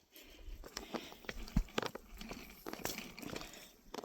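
Irregular soft crunches and clicks of a hiker moving about on wet, muddy ground, with one sharper knock about one and a half seconds in.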